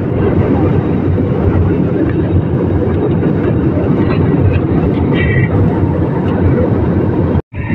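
Steady drone of a jet airliner in flight, engines and airflow heard from inside the passenger cabin. It breaks off for a moment near the end.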